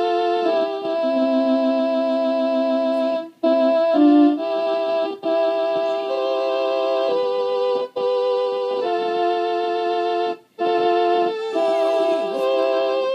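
An old-time hymn played on a keyboard instrument in slow, sustained chords that change every second or two, with a few short breaks between phrases. Near the end, a rat terrier's wavering howl begins to slide in over the music.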